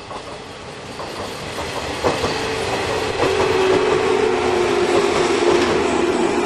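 Electric train approaching and running past, growing louder, its wheels clicking over rail joints with a steady whine that drops slightly in pitch.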